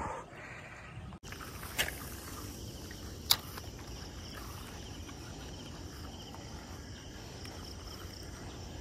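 Outdoor ambience with insects chirping steadily, and two short, sharp clicks about two and three seconds in.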